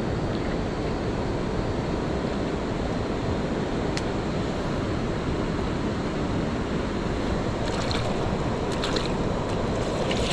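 Steady rushing of a mountain stream, with a single sharp click about four seconds in and short bursts of higher hiss near the end.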